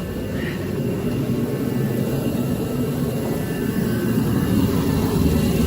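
Forced-air torpedo heater running steadily, its fan and burner making a continuous rushing noise that grows a little louder toward the end.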